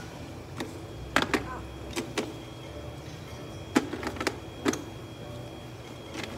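Hands handling small plastic items in and around a plastic cooler box: a scattering of about ten short, sharp clicks and knocks, in two clusters, over a steady low hum.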